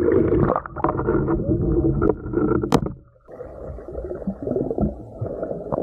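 Water sloshing and splashing against a camera at the surface of a stream, with a sharp knock about two and a half seconds in. About three seconds in the sound turns dull and muffled as the camera goes underwater.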